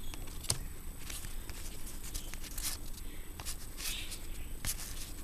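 Trading cards being handled and flipped through by hand: scattered light clicks and short rustling slides of card stock, the sharpest click about half a second in.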